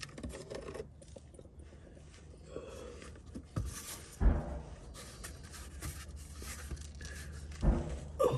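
Plastic underbody cover being handled and pushed into place under a car: light scraping and rustling with a few scattered knocks, the loudest about four seconds in and again near the end.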